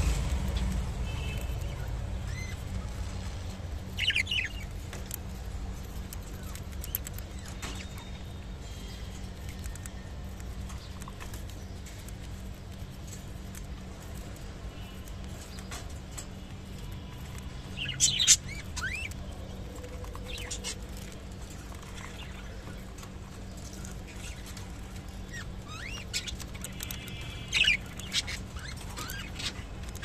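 Budgerigars giving short chirps in a few scattered bursts, loudest about two-thirds of the way through, with small clicks between them over a steady low hum.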